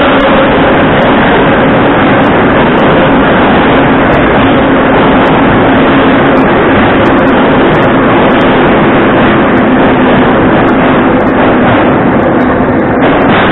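81-717/714-type metro train pulling out and running close past the platform: a loud, steady rumble of wheels on rails with a steady hum underneath. It eases off a little near the end as the last cars go by.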